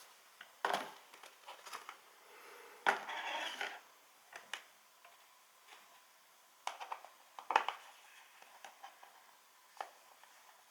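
Scattered light clicks and taps of small computer hardware being handled, with a short scrape about three seconds in: an M.2 NVMe SSD and its mounting screw being handled during a drive swap.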